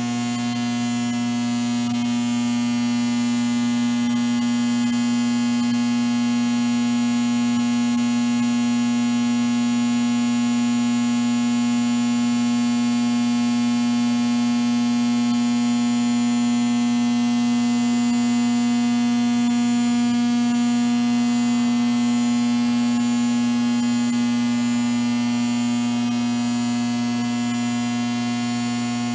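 Steady electrical buzz: a constant low hum with many overtones over a hiss. It swells very slightly and eases again but never breaks.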